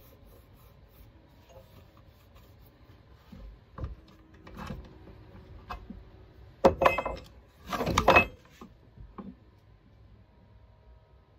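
A few short knocks and rubbing sounds of hard objects being handled by hand, the loudest two about seven and eight seconds in.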